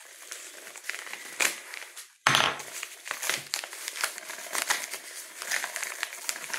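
Crinkling, rustling and tearing of a mail package being opened by hand to get a DVD out, with many small crackles, turning suddenly louder a little over two seconds in.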